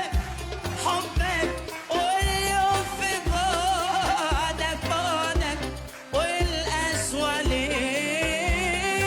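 Arabic music: an ornamented melody that bends and wavers with vibrato over a steady, pulsing bass beat.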